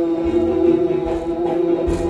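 Live axé music played loud: voices hold one long sung note over low drum beats.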